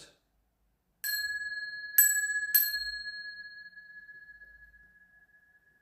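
Small bells struck three times, about a second in, at two seconds and half a second later, each strike sounding the same clear high ringing tone that fades away slowly.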